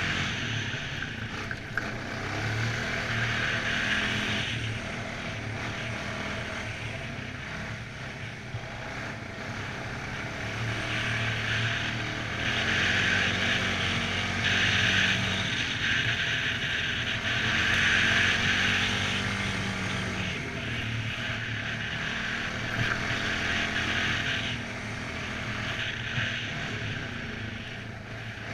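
2012 Honda Foreman 500 ATV's single-cylinder engine running under way, its level rising and falling with the throttle.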